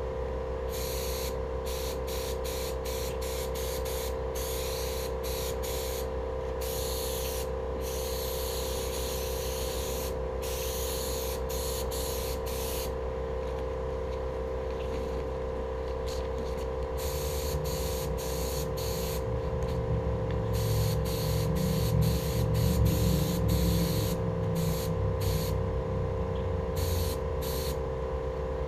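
Compressed-air paint spray gun hissing in repeated bursts as the trigger is pulled and released while coating steel wheels, over a steady hum. A low rumble builds in the second half, loudest about three-quarters of the way through.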